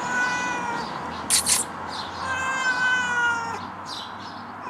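Domestic cat meowing, long drawn-out cries, as it calls from up in a tree it cannot get down from. A brief noisy burst falls between the first two cries.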